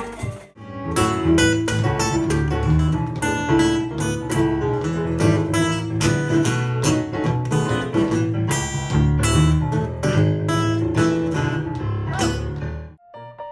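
Live blues on a strummed acoustic guitar, in a steady driving rhythm over low bass notes. It cuts off abruptly near the end.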